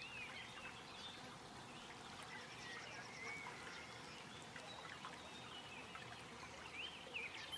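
Faint birdsong: scattered short chirps and whistles over a steady low background hiss.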